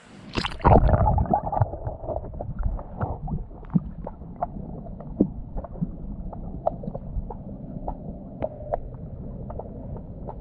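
Stream water heard underwater: a splash about half a second in, then a muffled low rush with many small bubbly ticks and pops scattered through it.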